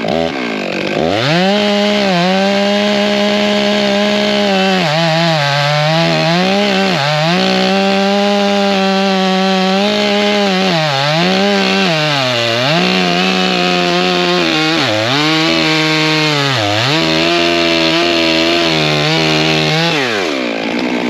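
Stihl MS 661 Magnum two-stroke chainsaw cutting through a large oak log at high revs. Its engine pitch sags and recovers again and again as the chain loads up in the wood. The throttle drops off near the end.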